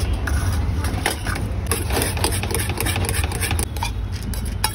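Metal spoon clicking and scraping against a bowl as a thick marinade is stirred, a rapid irregular run of clicks over a steady low rumble.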